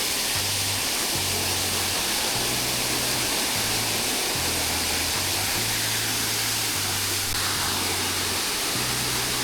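Steady rush of falling and flowing water from a waterfall on a river, with the low bass line of music underneath.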